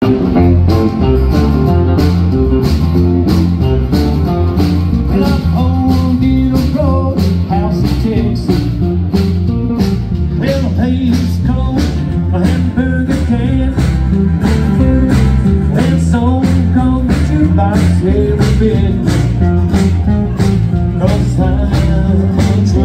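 Live country band playing an upbeat song on guitars and drums, with a steady driving beat.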